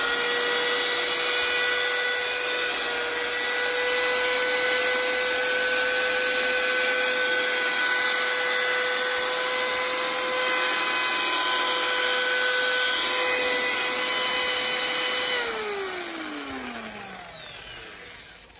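Electric motor of a secondhand corded 220 V power tool running unloaded at full speed with a steady high whine. About fifteen seconds in it is switched off and spins down, the whine falling in pitch and fading over about three seconds.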